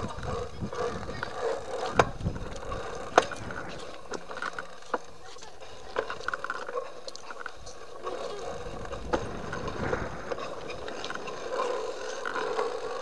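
BMX bikes rolling along a tarmac road, with tyre noise, rattling and small clicks, and two sharp knocks about two and three seconds in.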